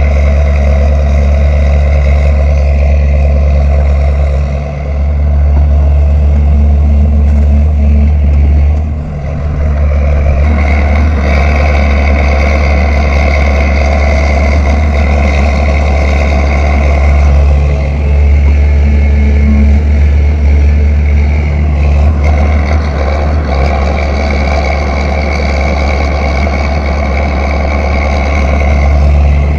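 Caterpillar 320 hydraulic excavator's diesel engine running steadily under load while digging, with a steady higher whine over the deep engine note. The level dips briefly twice in the first ten seconds.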